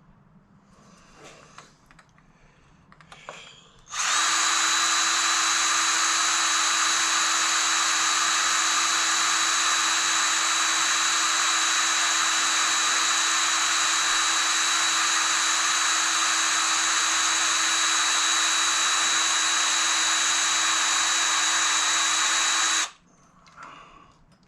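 Electric drill running at a steady speed, drilling into the stuck hinge pin screw of a Brompton folding bike with a small bit, starting about four seconds in and cutting off abruptly near the end. Faint handling noises come before it.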